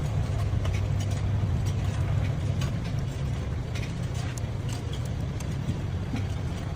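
Car engine running steadily at idle, with a few faint light clicks over it.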